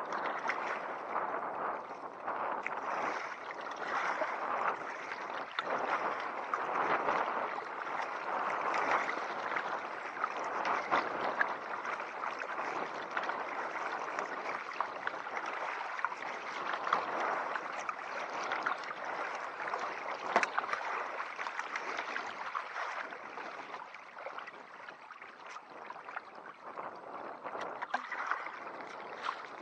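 Water splashing and gurgling around a paddled kayak on choppy tidal river water, a continuous uneven wash with small splashes throughout, easing off a little near the end.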